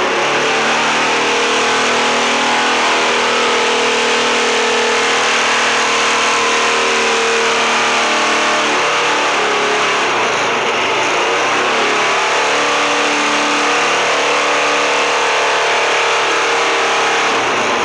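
Kohler 1750 generator's engine running steadily, just after being started on choke following its repair, with a slight change in its note about nine seconds in.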